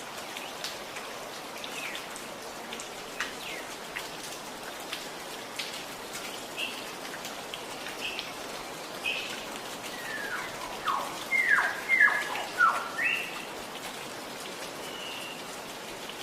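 Steady gurgling, trickling water with scattered drip-like ticks, and forest birds chirping over it. About ten seconds in comes a quick run of loud falling chirps, the loudest part.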